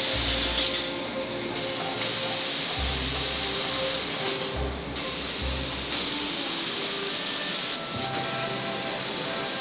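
Compressed-air spray guns hissing as they coat frying pans with non-stick coating, the hiss stopping briefly about a second in, again around four and a half seconds and near eight seconds, over a low machine rumble.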